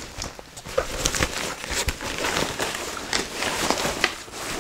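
Crinkling and rustling as a backpack-style diaper bag is handled and its pockets opened, with a few small knocks and clicks scattered through.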